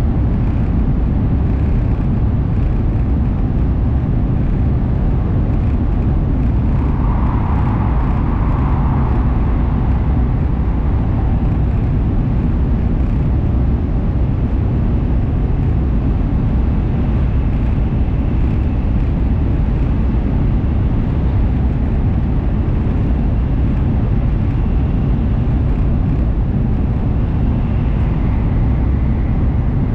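Steady loud rumble of an N700S Shinkansen heard inside the passenger car, running at speed through a tunnel. A brief hum rises above it about seven seconds in.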